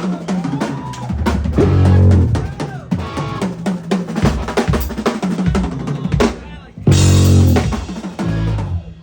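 Drum kit played in fast gospel-style runs of snare, rimshot and bass-drum strokes over band music, with loud accented ensemble hits about two seconds in and again about seven seconds in.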